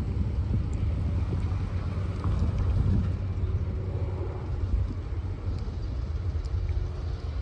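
Wind rumbling on the microphone, with cars driving past on the road.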